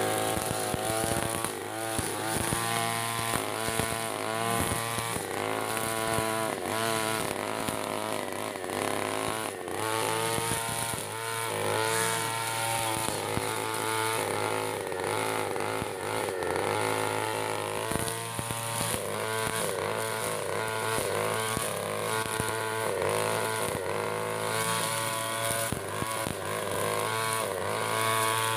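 Backpack brush cutter's two-stroke engine, a Koshi 63cc converted from a go-ped motor, running under load as it cuts thick grass. Its pitch rises and falls over and over as the throttle is worked.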